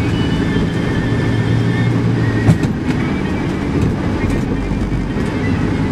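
Car running along a city street, heard from inside the cabin: engine and road noise with a steady low hum that stops at a sharp knock about two and a half seconds in.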